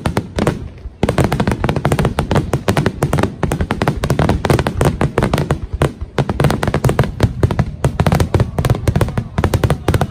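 Aerial fireworks going off in a dense barrage: rapid crackling of many small reports over low booms, with a brief lull just before a second in.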